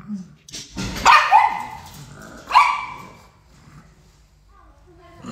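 A dog barking: three sharp barks, two close together about a second in and a third about two and a half seconds in.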